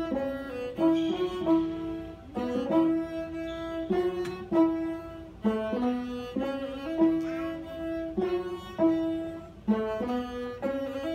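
Ethiopian traditional string music: a bowed masenqo fiddle plays a repeating melody over plucked krar lyre notes.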